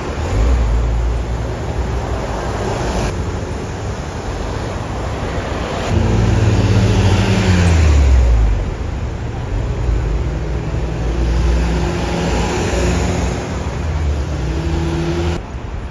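Buses and minibuses driving past on a city street, engines running. About six seconds in, a vehicle passes close and is loudest for a couple of seconds, its engine note falling in pitch.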